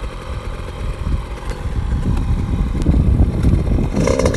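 Motorcycle engine running, growing louder over the second half.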